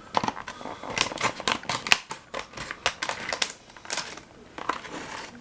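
Plastic blister packaging of a diecast toy car being pried and torn open by hand: a rapid, irregular run of sharp plastic clicks and crinkles.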